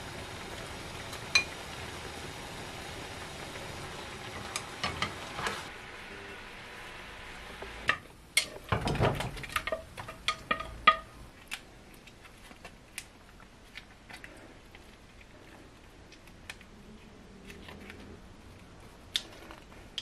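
Broth simmering in a frying pan, with wooden chopsticks now and then clicking against the pan. About eight seconds in comes a few seconds of loud clatter as rice cakes and fish cakes are scraped with chopsticks from one pan into another. After that there are only occasional light taps.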